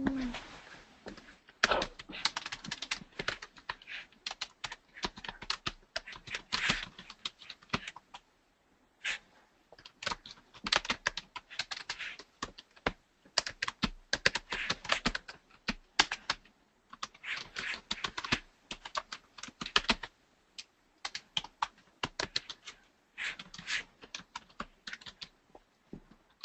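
Typing on a computer keyboard: bursts of rapid keystrokes with short pauses between them.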